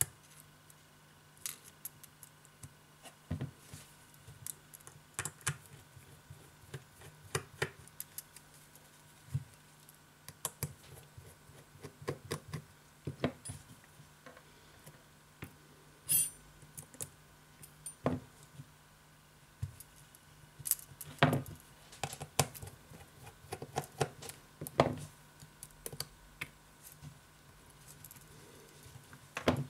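Small irregular clicks and taps of metal tweezers and parts against a smartphone's plastic and metal frame during disassembly, over a faint steady hum.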